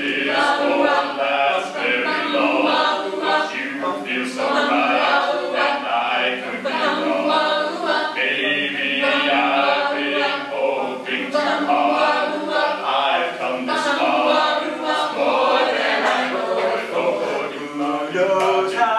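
A cappella vocal group singing in harmony: several voices together, no instruments, keeping on without a break.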